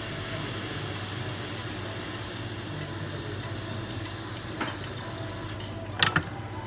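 A steady low mains-type hum and hiss of bench electrical equipment, with a small click a little past halfway and two sharp clicks close together near the end.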